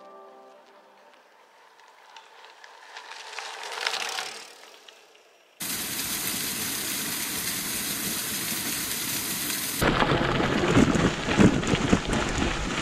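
Music fades out, then a swelling rush dies away. About five and a half seconds in, a loud, steady hiss cuts in suddenly. About four seconds later it turns into gusty, uneven wind noise on the microphone.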